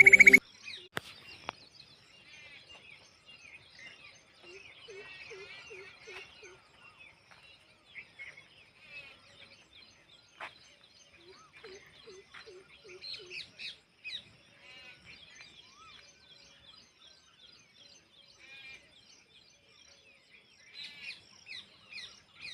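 Several birds chirping and trilling. A run of about six lower, quick, evenly spaced notes comes about five seconds in and again about twelve seconds in.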